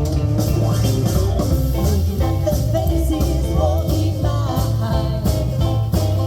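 A band playing a song, with a singer over guitar, bass and drums, steady and loud.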